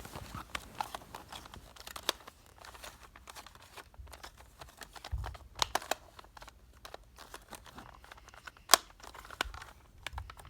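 Panda Rubik's cube being twisted by hand: a run of irregular plastic clicks and clacks, with one louder click about nine seconds in.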